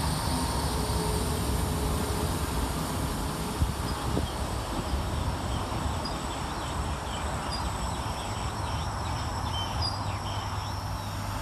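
Northern Class 319 electric multiple unit moving along the station platform: a steady low rumble of wheels on rail, with a few light clicks from the track.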